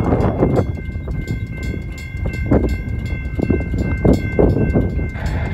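Railroad crossing bells ringing together: a General Signals Type 2 electronic bell sounding steady tones and a second-generation WCH mechanical bell striking rapidly. Underneath is the low rumble of a Union Pacific freight train on the rails.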